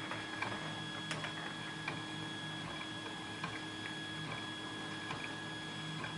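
A few small, sharp clicks and taps from a lock and lockpicking tools being handled, over a steady electrical hum.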